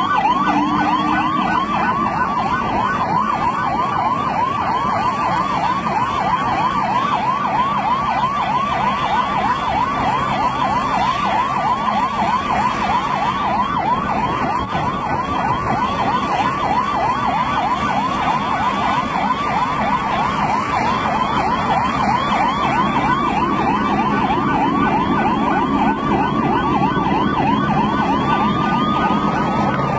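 Emergency vehicle siren sounding a fast yelp, its pitch sweeping up and down several times a second without a break. Near the end a second, slower tone rises.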